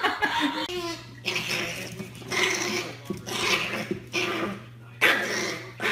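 Small fluffy dog working at a room corner, making a series of short rough noises about once a second, over a steady low hum.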